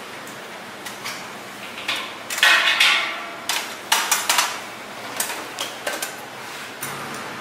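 Stainless steel stockpots and a metal lid frame being handled: a harsh scrape of metal on metal about two and a half seconds in, then a run of clanks and knocks as the lid is fitted onto the pot.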